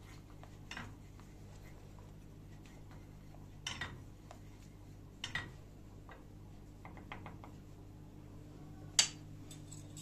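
Wooden spoon clicking and knocking against a small stainless steel saucepan while stirring melted butter with red pepper, a few scattered strokes with a sharper knock near the end, over a faint steady low hum.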